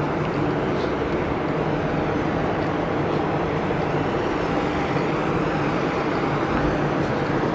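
Steady rumble of a vehicle in motion, even throughout, with a faint low hum.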